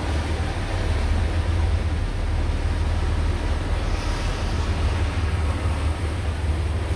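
Motor cruiser's engines running steadily underway, a low drone under a wash of wind and water noise.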